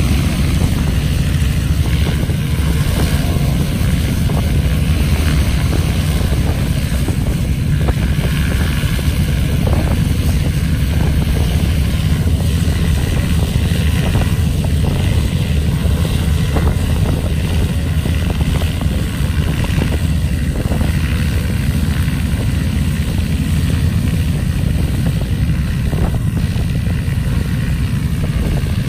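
Agricultural aircraft's propeller engine idling steadily on the ground, a low, even rumble.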